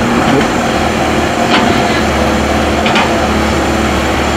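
Heavy diesel earth-moving machinery running steadily, with two sharp knocks about a second and a half apart.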